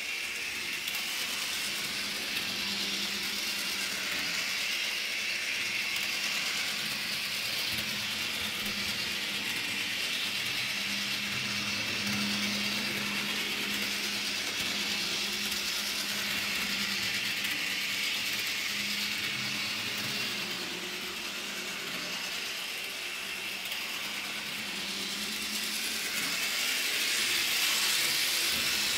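Bachmann HO-scale John Bull model train running on its track: a steady whir of the locomotive's small electric motor and gearing with the wheels running on the rails. It grows a little louder near the end as the train comes closer.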